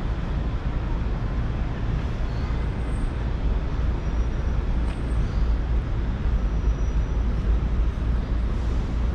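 Steady city street traffic noise: a constant low rumble of passing vehicles with no single event standing out.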